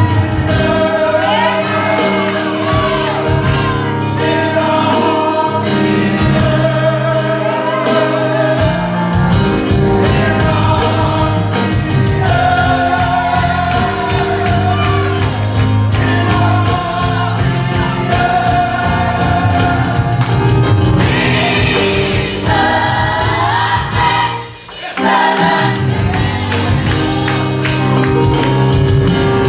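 Gospel worship song: voices singing together, choir-style, over a band with a steady beat. The music drops out briefly for a moment about three-quarters of the way through, then comes back in.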